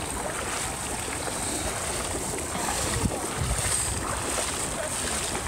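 Footsteps sloshing and splashing through shallow water on a flooded marsh trail, with wind rumbling on the microphone.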